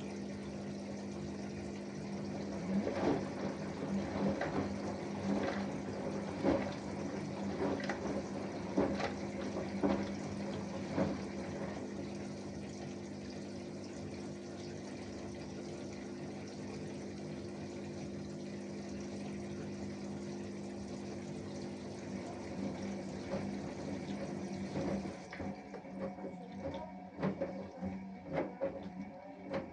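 Samsung Eco Bubble 6.5 kg washing machine with inverter motor mid-wash: water sloshing in the turning drum, with a splash about once a second, over a steady hum. The hum cuts out near the end, leaving irregular knocks from the drum.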